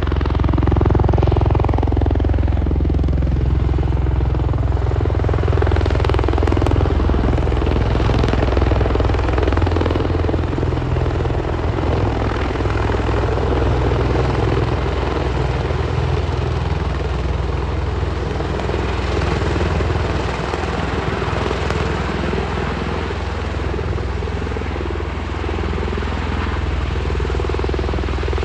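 V-22 Osprey tiltrotor in helicopter mode, its two big rotors tilted upright as it hovers low. It makes a loud, steady rotor and engine drone that eases a little in the second half.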